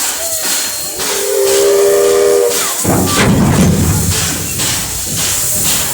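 Steam locomotive whistle blowing a chord of several notes for about two seconds over steady hissing steam. It cuts off sharply, and a louder low rumble with repeated exhaust beats follows.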